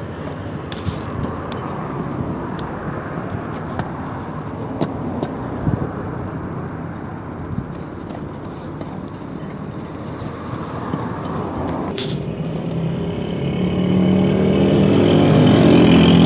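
Roadside traffic noise with scattered small clicks. From about twelve seconds in, a motor vehicle's engine grows louder as it comes closer.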